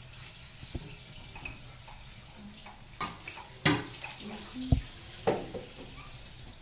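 Kitchen clatter: about five separate knocks and clinks of dishes and containers being handled, the loudest near the middle and towards the end, over a faint steady hum.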